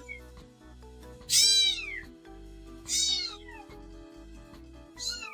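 A cat meowing: a long meow falling in pitch about a second in, a shorter falling one about three seconds in, and another beginning near the end, over background music.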